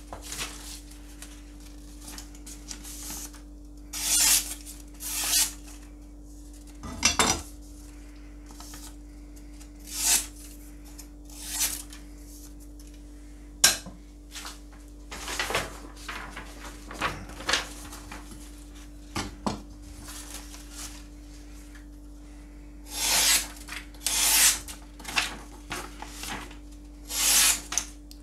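Japanese nakiri kitchen knives slicing through sheets of paper in a paper test of edge sharpness: a series of short swishing cuts with paper rustling. Now and then a sharp clink as a steel blade is picked up from or set down on the cutting board, over a faint steady hum.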